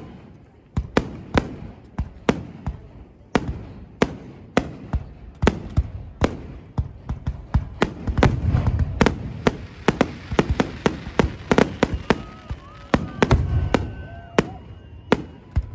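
Aerial firework shells bursting: sharp bangs at irregular intervals, coming thick and fast around the middle with a rumbling wash between them.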